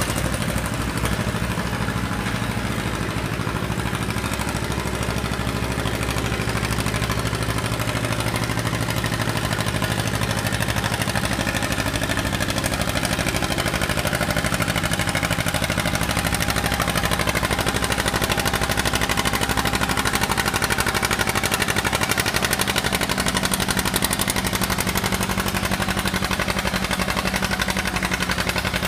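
John Deere two-cylinder tractor engine running steadily under load as it pulls a sled down a dirt pulling track.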